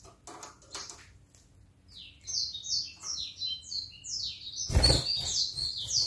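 Canary calling with a run of short, falling, high chirps, about three a second, starting about a third of the way in. A brief, loud thump-like flutter comes near the end.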